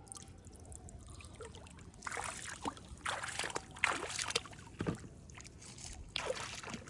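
Water splashing and sloshing in a string of irregular surges, starting about two seconds in and coming again near the end.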